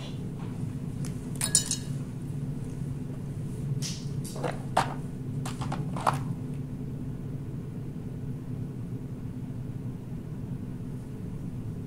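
Light plastic clicks and clinks of a micropipette and PCR tubes being handled in a plastic tube rack, scattered through the first half, over a steady low hum.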